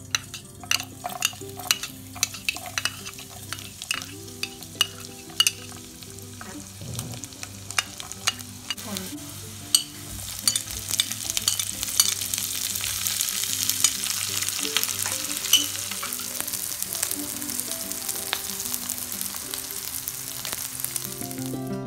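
Chopped garlic, green chillies and vegetables frying in hot oil in a nonstick frying pan while being stirred. Sharp clicks and pops come through the first half. From about ten seconds in, the sizzle grows louder and hissier as more ingredients go in.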